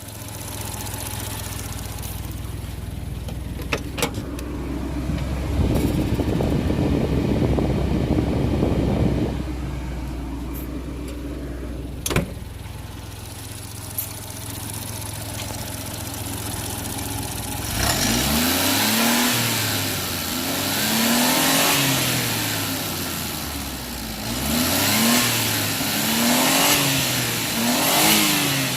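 Suzuki Jimny engine idling steadily, then revved up and back down about five times in a row, with a new thermostat fitted. A rushing noise lasts a few seconds about six seconds in, and there are a couple of sharp clicks.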